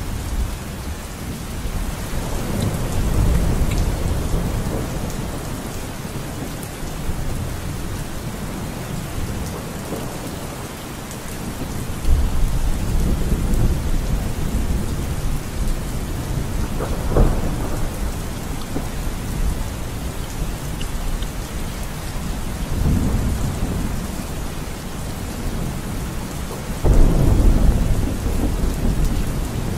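Steady rain with rolling rumbles of thunder. The loudest rumbles set in suddenly about twelve seconds in and again near the end.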